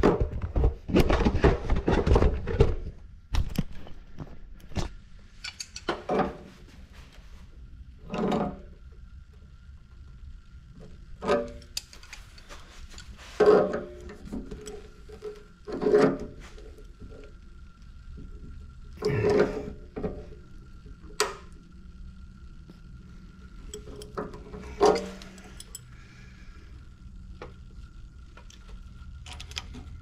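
Handling knocks and clunks on the metal top and fittings of an electric water heater: a burst of clatter in the first three seconds, then about a dozen separate knocks, with a faint steady high whistle through the middle.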